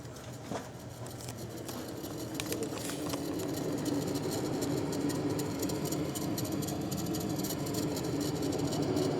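Air-conditioning fan coil unit making an abnormal noise: a steady drone that swells over the first few seconds and then holds, with a fast, fine rattle over it.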